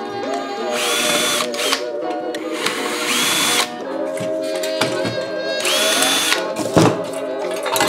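A power drill run in three short bursts of about a second each. Its motor whine rises, holds and falls each time, over background music.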